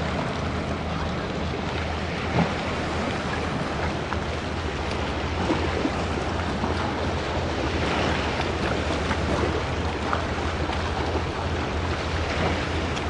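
Steady wind rumbling on the microphone, mixed with the wash of choppy sea water, with one brief knock a little over two seconds in.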